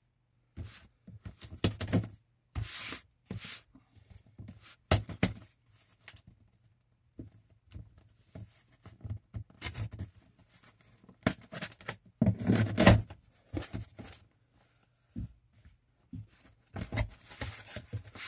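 Packing tape being ripped off a cardboard box in short tearing pulls, with knocks and rustles of the cardboard as the box is handled and its flaps are opened near the end; the loudest rip comes about twelve seconds in.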